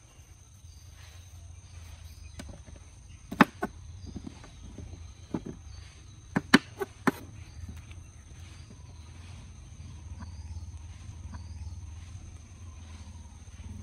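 Large kitchen knife chopping through aloe vera leaves onto a wooden table: about seven sharp knocks in two quick clusters a few seconds in.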